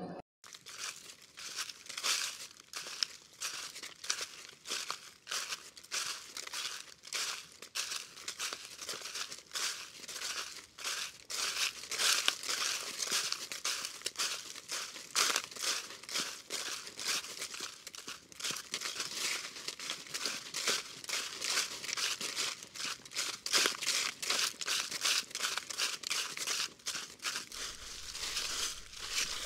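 Footsteps crunching and rustling through forest undergrowth: an irregular, unbroken run of crisp crackles.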